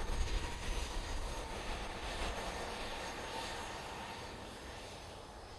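Jet engines of a Boeing 737-700 (CFM56-7B turbofans) running at taxi power: a steady whine over a low rumble, fading gradually.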